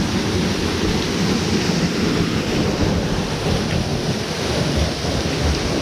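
Fast-flowing water of a waterfall's beck rushing steadily.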